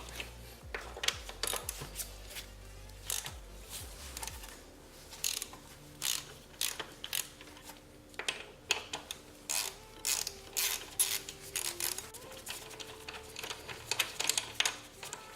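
Ratchet wrench clicking in irregular runs as the front brake caliper bolts are unscrewed.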